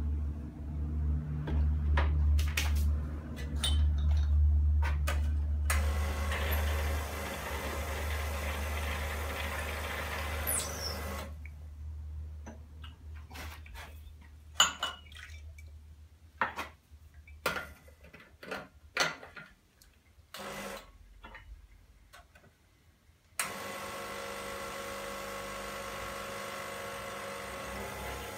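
An espresso machine running with a low hum and water rushing through. It stops, and a series of knocks and clinks follows as the metal portafilter and a ceramic cup are handled, with one sharp knock louder than the rest. Then the machine's pump starts suddenly and runs on steadily as a shot is pulled.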